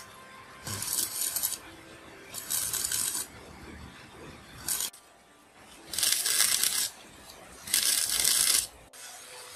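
Stick (arc) welder laying short tack welds on steel: four bursts of sizzling arc crackle, each just under a second long, with a very brief strike about five seconds in.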